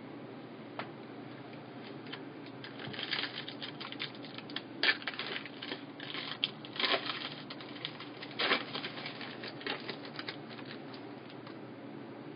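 Trading-card packaging and cards being handled: irregular crinkling and clicking, with a few louder snaps about five, seven and eight and a half seconds in, typical of a card pack wrapper being torn open.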